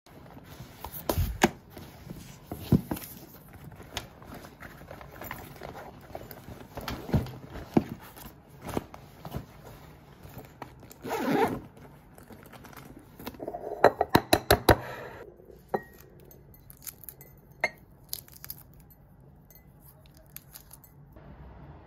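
Close-up handling sounds: plastic cling film crinkling and rustling, scattered clicks and clinks, with a quick run of sharp clicks about two thirds of the way through. Near the end, fainter small cracks of eggshell being peeled off a boiled egg.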